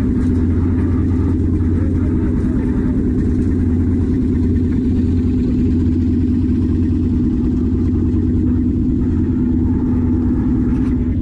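Engine on a wooden fishing boat running steadily at an even speed, a constant low drone with a steady hum.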